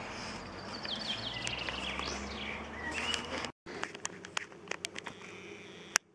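Outdoor background noise with a small bird chirping in quick rising and falling notes; after an abrupt cut, a quieter background with scattered sharp clicks, one loud click near the end.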